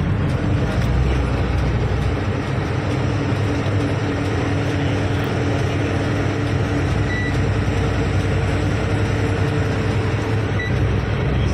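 Truck's diesel engine running steadily at cruise with road noise, heard from inside the cab.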